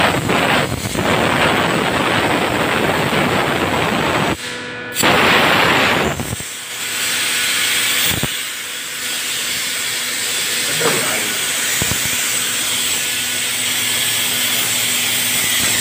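Water spraying from a hand spray nozzle on a hose into a plastic bathtub, a steady hiss. It drops out briefly a little past four seconds in, comes back louder for about a second, then runs on softer.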